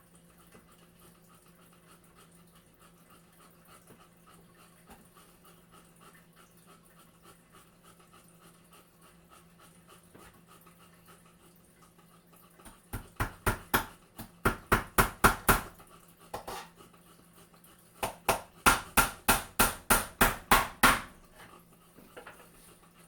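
Hammer driving nails into a wooden frame: two quick runs of sharp blows, the first starting a little past halfway, the second a couple of seconds later.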